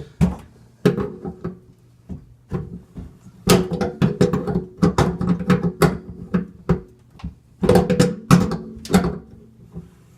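Large pliers clanking and scraping on a sink strainer's metal locknut as it is tightened, a string of irregular sharp knocks with the sink basin ringing after each at the same few pitches.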